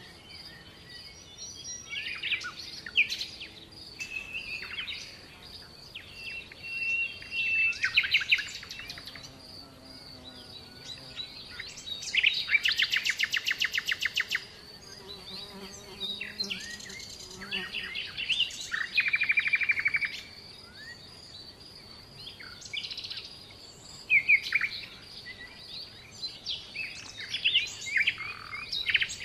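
Birdsong: several birds singing in turn with chirps, whistled phrases and fast trills, over a faint, steady, high pulsing in the background.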